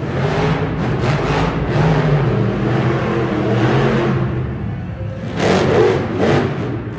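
Monster truck's supercharged V8 engine revving as the truck drives and lifts into a wheelie, surging louder about five and a half seconds in.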